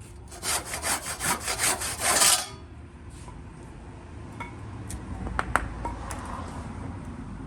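Handsaw cutting through a piece of wood with quick back-and-forth strokes, about four a second, that stop about two and a half seconds in. A few faint clicks follow.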